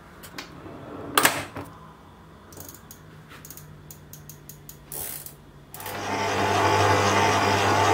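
Stand mixer with a dough hook kneading flour into dough: a few clicks and knocks, then the motor runs faintly and, about six seconds in, becomes a loud steady hum.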